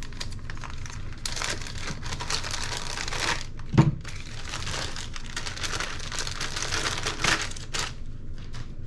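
Plastic packaging crinkling and rustling as it is handled and opened, with one sharp knock about four seconds in.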